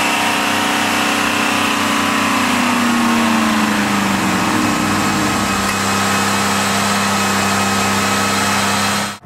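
Chevrolet LT1 5.7-litre V8 engines of a Camaro Z28 and a Firebird running at raised revs with their engine oil drained, being run to destruction. The engine note falls in pitch about four seconds in and then holds steady, and the sound cuts off abruptly near the end.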